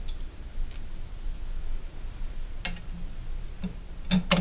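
A few scattered light metallic clicks of small screws and a T-handle hex key being handled and set into the screws of a rifle handguard's clamp, with the loudest pair of clicks near the end as the hex key goes into a screw head.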